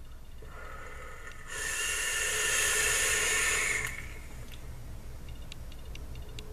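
A drag on a dripping atomizer with dual stainless steel coils at 0.21 ohm fired at 70 watts. Air is drawn through the firing atomizer with a steady hiss that grows louder about a second and a half in and stops suddenly about two and a half seconds later. Faint ticking of a wall clock follows.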